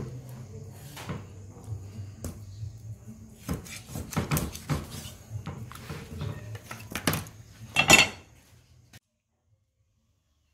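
A cleaver chopping a whole fish on a wooden chopping board: a run of irregular knocks as the blade strikes through the fish into the board, the loudest about eight seconds in.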